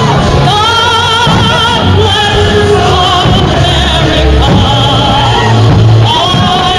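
Music with a singer holding long notes with a wide vibrato over sustained bass notes.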